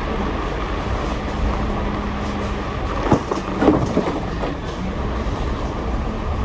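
Cabin noise on the upper deck of a moving double-decker bus: a steady rumble of engine and road noise with a low hum. A few knocks and rattles come about three to four seconds in.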